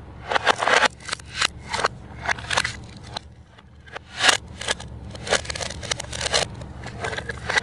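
A plastic toy knife cutting apart plastic toy fruit and vegetables whose halves are held together by Velcro. The Velcro tears apart in a string of short, crackly scratching rips, the loudest a little after the start and again about four seconds in, with plastic pieces clicking as they are handled.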